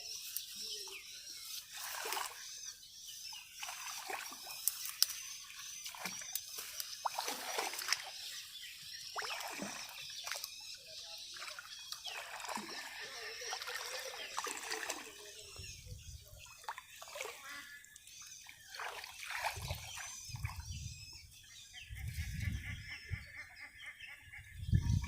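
Pond water splashing and trickling in repeated small splashes. Low dull thumps join in over the last third.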